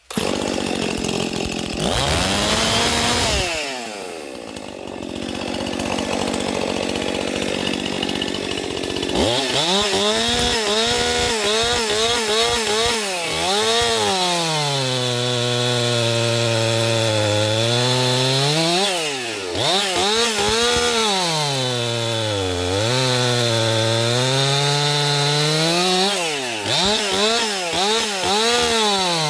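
Stihl chainsaw running and cutting through log rounds. It comes in suddenly at high revs, drops to a lower, quieter speed from about 4 to 9 s, then goes back to full throttle in the cut, its pitch sagging and recovering several times as the chain bites into the wood.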